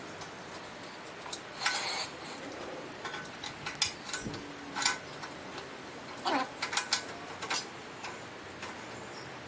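Engine hoist being handled, with scattered metallic clanks and rattles and a short falling squeak about six seconds in.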